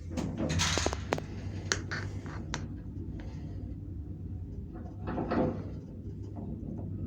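Lift mechanism with a steady low hum, a quick series of clicks and knocks in the first few seconds, and a brief rush of noise about five seconds in.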